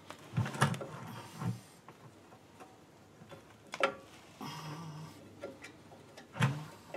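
A few sharp metallic clicks and knocks, spaced irregularly, as rear drum-brake hardware on the backing plate is handled and shifted by hand.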